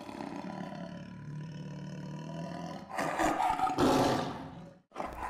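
A big cat's roar sound effect: a low rumbling growl that swells into a loud, rough roar about three seconds in and cuts off near the end.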